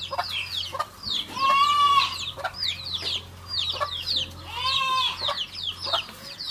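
Chickens clucking and calling, with many short high peeps and two longer drawn-out calls about a second in and near five seconds in.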